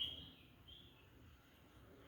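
Faint bird chirps: a short high call at the start and another just under a second in, over quiet background noise.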